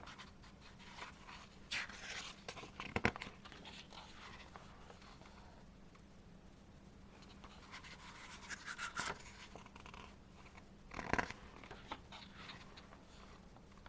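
Faint rustling and handling of an album's photo book, pages being turned, with a few light taps; the loudest rustles come about three seconds in and again near the end.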